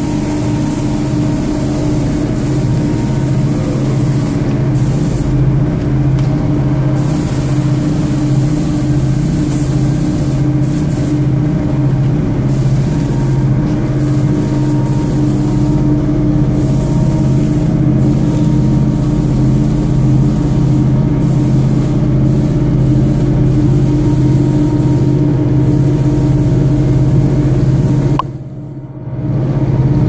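Automatic carpet washing machine running: a loud, steady motor hum with a low drone and a higher whine over it, briefly quieter near the end.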